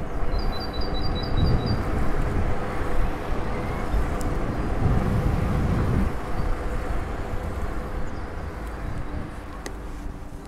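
Rumbling wind on the microphone and city traffic noise during an e-bike ride, easing off over the last few seconds. A quick run of about seven short high chirps sounds near the start.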